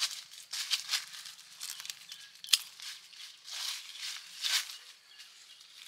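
Plastic fruit bag and leaves rustling as they are handled, with one sharp snip of pruning shears about two and a half seconds in as a bagged fruit is cut from its branch.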